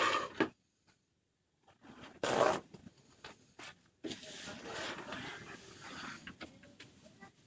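Handling noises: a short loud scrape or rustle, another about two and a half seconds in, then a couple of seconds of steady rustling.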